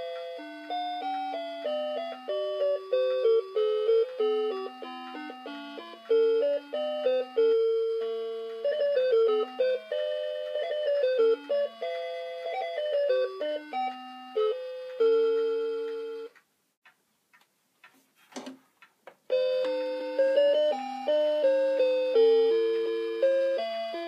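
Seiko Puppet RE524N karakuri clock playing its hourly show tune as an electronic melody of simple beeping notes. About sixteen seconds in the tune stops for some three seconds, with a few faint clicks, and then a melody starts again.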